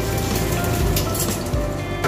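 Hot cooking oil sizzling in a frying pan after fried baby barracuda have been lifted out, over background music with steady sustained notes.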